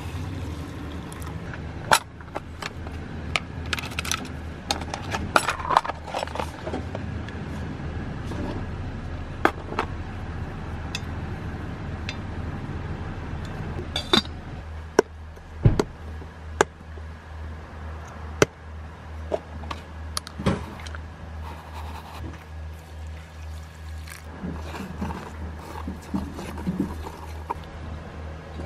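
A wooden spoon stirs oats and water in a stainless steel saucepan, scraping, with sharp clinks and knocks against the pot. Near the end a metal lid is set on the pan. A steady low hum runs underneath.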